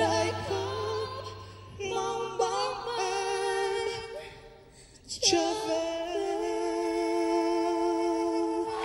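A woman and a man singing the end of a pop ballad duet into microphones, the low accompaniment dropping away about two seconds in. The voices finish on a long held note.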